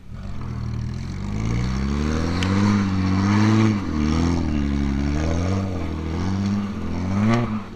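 BMW 325i's straight-six engine revving hard under load as the car claws forward on a dirt trail. The pitch climbs over the first couple of seconds, swings up and down, then drops off sharply near the end.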